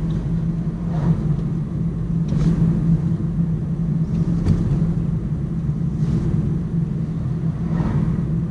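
Steady drone of engine and road noise inside the cabin of a moving vehicle, with a few faint brief ticks.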